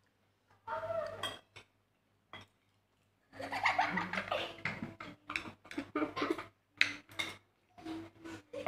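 Spoons and forks clinking and scraping on plates during a meal, with a child laughing and giggling from about three seconds in.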